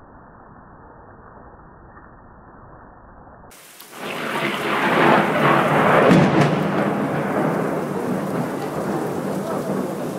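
Thunder: a few seconds of faint hiss, then about four seconds in a loud rolling rumble rises, peaks a couple of seconds later, and keeps rumbling.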